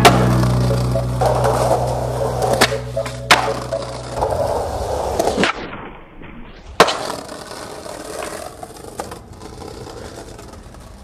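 Skateboard on concrete steps and pavement: a run of sharp board clacks from pops and landings, the loudest right at the start and about seven seconds in, with the wheels rolling on concrete between them. The rolling fades as the board moves away.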